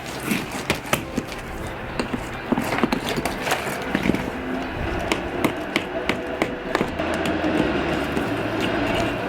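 Irregular sharp knocks and clatter of loose brick and mortar being broken out of a deteriorated brick column base, over a steady low hum.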